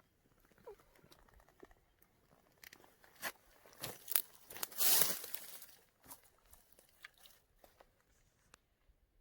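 Footsteps crunching through dry leaf litter and sticks, irregular crunches and rustles, with a louder brushing rustle about five seconds in.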